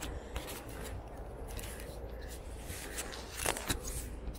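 Pedestrian street ambience: footsteps and scattered clicks and knocks over a steady low hum, with a louder clatter about three and a half seconds in.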